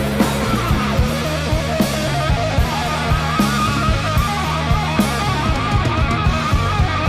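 Rock music with distorted electric guitar and a driving drum kit beat.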